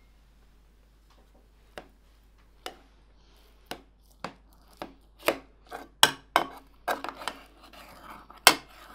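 A knife cutting into a burnt, overcooked lasagna in a metal baking tin: sharp clicks and scrapes of the blade against the hard top and the tin. They start after a quiet second or two and come faster, with a rougher scraping stretch and the loudest click near the end.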